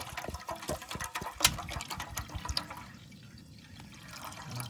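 Water poured from a plastic bottle into a metal camping pot, splashing irregularly, with one sharp click about a second and a half in. The pouring grows quieter for the last couple of seconds.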